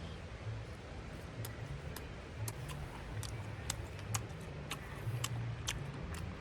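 Irregular sharp clicks, about a dozen, over a steady low rumble.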